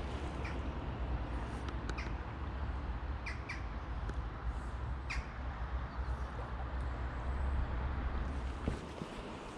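Wind rumbling on the microphone over the steady rush of river water, with several short, sharp bird calls. The wind rumble drops away near the end.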